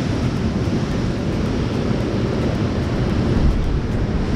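Wind buffeting the microphone over steady sea surf breaking on rocks, a continuous low rumbling roar.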